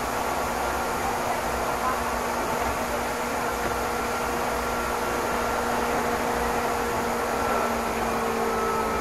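Steady running noise heard inside a Meitetsu Inuyama Line express train carriage: an even rush with a few faint steady tones, some rising slightly near the end.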